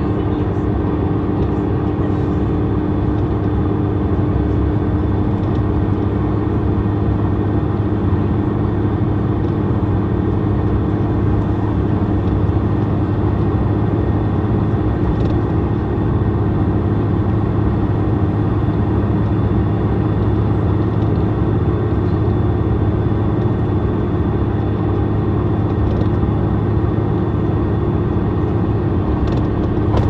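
Iveco Tector 6 six-cylinder diesel engine of an Iveco Midirider bus running steadily at a constant engine speed.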